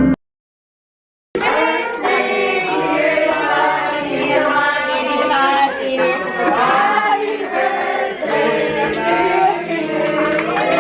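Music cuts off, and after about a second of silence a group of voices starts singing together.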